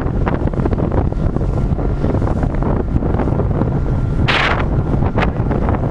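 Wind buffeting the microphone over the steady low drone of a small boat's motor, with a short loud hiss about four seconds in.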